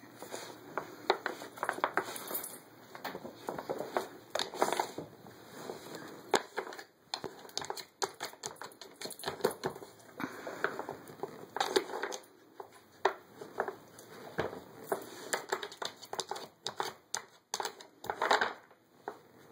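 A dog working a wooden treat-puzzle board with its nose and paws: irregular wooden clacks and knocks as the pegs and corks are pushed and bumped about in their slots.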